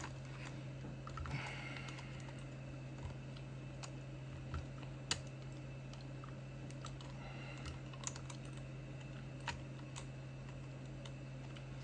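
Scattered light clicks and scrapes of a small screwdriver working a tight screw in a plastic speaker casing, a few sharper clicks among them, over a steady low hum.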